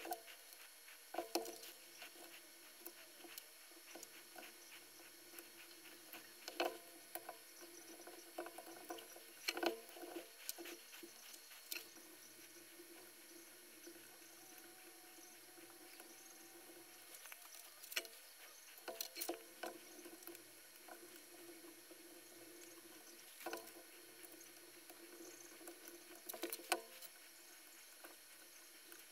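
Faint scattered clicks, taps and light scratching of a soldering iron, solder wick and circuit board being handled while components are desoldered from a power-supply board, over a low steady background hum.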